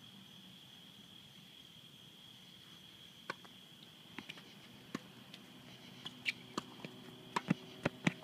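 Sharp pops of a tennis ball struck by racquets and bouncing on a hard court during a rally, a handful starting about three seconds in and coming faster and louder near the end. Under them is a steady high chirring of night insects.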